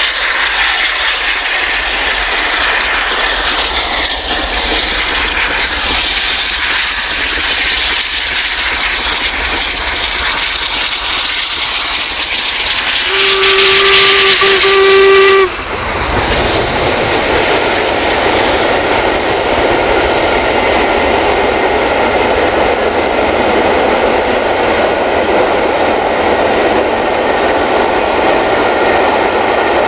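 LMS Royal Scot class 4-6-0 steam locomotive 46115 Scots Guardsman approaching and passing with a loud hiss, which the uploader puts down to a steam leak on the fireman's side. Its whistle sounds for about two seconds just before halfway and cuts off sharply as the engine goes by. The coaches then roll past with steady wheel and rail noise.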